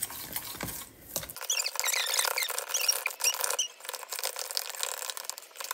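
Fork stirring pancake batter in a plastic container, scraping against the plastic with clicks and a run of short, high squeaks in the middle.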